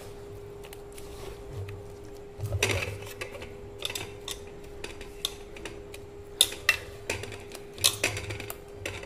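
Idli batter (urad dal paste and washed idli rava) being mixed by hand in a steel vessel: soft wet stirring with scattered sharp clinks against the metal. The loudest clinks come at about six and a half and eight seconds in.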